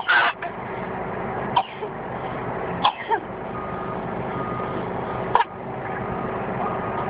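Small child giving a handful of short coughs spaced a second or more apart over a steady background hum. The parent takes them for put-on, not real, coughs.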